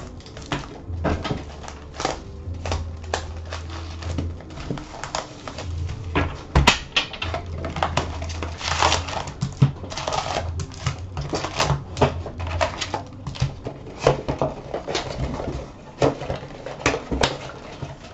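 Hobby box of hockey card packs being opened and handled by hand: cardboard flaps and packs knocking, crinkling and rustling in a quick, irregular run of clicks.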